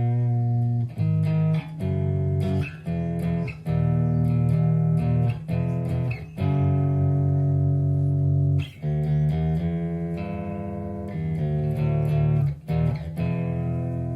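Bass guitar played through a Fender Rumble LT25 bass combo amp: a line of plucked notes, several held for a second or two.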